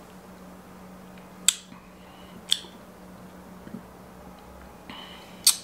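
A quiet room with a faint steady hum and three short, sharp clicks: about a second and a half in, a second later, and near the end.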